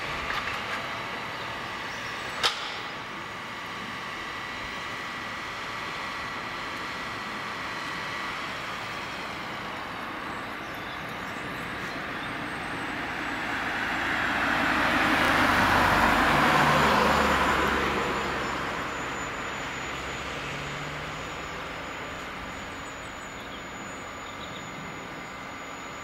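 John Deere 1470E harvester running steadily, engine and hydraulics humming, with a single sharp click a couple of seconds in. Around the middle a louder rushing noise swells over a few seconds and fades again.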